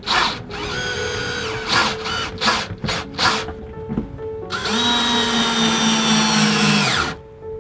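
Cordless drill-driver driving in the screws that fix a washdown pump to a wooden panel. It makes one run about half a second in, three short bursts, then a steady run of about two and a half seconds that cuts off near the end.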